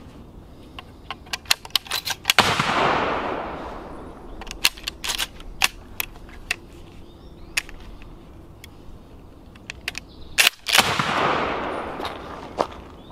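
Two shots from a Springfield 67F 20-gauge pump-action shotgun, about 8 seconds apart, each with a trailing echo. Sharp metallic clicks of the action being worked and shells handled come before and between them.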